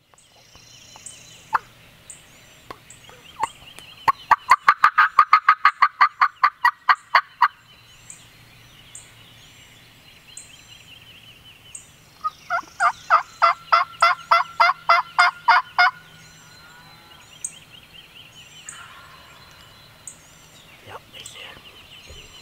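Turkey calling: two long, rapid runs of yelps, each lasting a few seconds, about six notes a second, with fainter calls near the end. Small birds chirp high over it.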